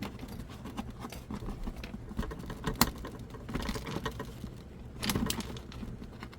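Lego plastic bricks clicking and rattling as the assembled set is handled and pulled at to open it. There is one sharp click nearly three seconds in and a cluster of clicks about five seconds in, over a low steady hum.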